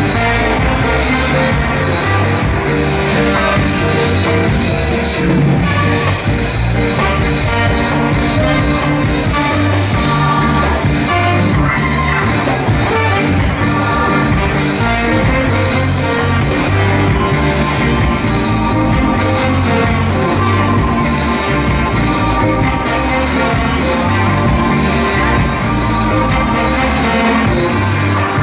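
Live ska band playing with a steady, even beat: saxophone, trumpet and trombone over electric guitar, keyboard and drum kit.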